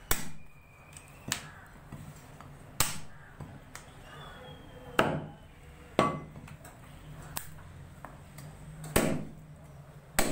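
A butcher's meat cleaver chopping goat meat on a wooden tree-stump chopping block: about eight sharp chops at an uneven pace, some heavy and some light.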